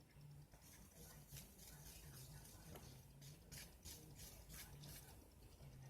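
Near silence: room tone with a faint low hum that comes and goes, and a few soft clicks.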